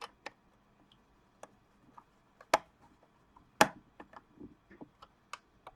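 Scattered light clicks and knocks of hard plastic parts being handled while a small fume extractor's case and fan are assembled, with two louder knocks about two and a half and three and a half seconds in.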